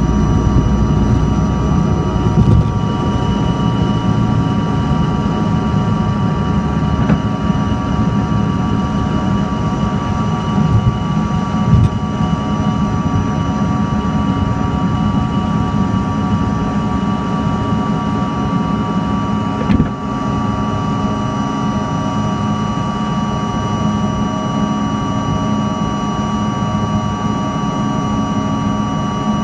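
Cabin noise of a CRJ-200's two rear-mounted GE CF34 turbofans at takeoff power during the end of the takeoff roll and the climb: a steady rush with several high whining tones over a low rumble. The rumble is heaviest in the first few seconds, there are a couple of short knocks, and the level drops slightly about twenty seconds in.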